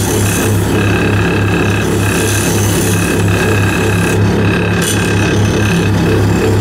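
Wood lathe running steadily with its motor hum throbbing about three times a second, a turned wooden spindle spinning in it.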